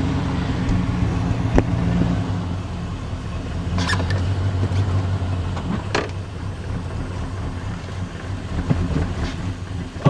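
GMC Sierra pickup's 5.3-litre LS V8 running at idle, a steady low hum whose note shifts about two seconds in, with a few sharp clicks over it.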